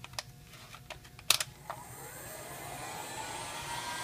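Plastic clicks as a Metabo electric heat gun is handled and switched on, the loudest about a second in; its fan motor then spins up, a whir rising in pitch and growing louder.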